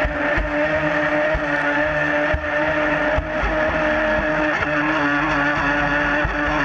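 RC speedboat's motor running at a steady high pitch with water rushing and spraying past the hull, heard from a camera on its deck. The hull slaps the chop several times.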